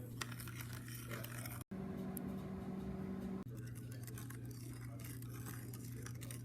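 Steady low electrical hum with faint small clicks and scrapes, cut off abruptly about one and a half seconds in and changing in pitch about three and a half seconds in, as clips are spliced together.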